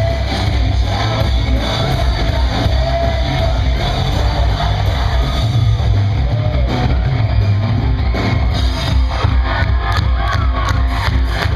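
Loud rock music: a singing voice over electric guitar, with heavy bass and drums.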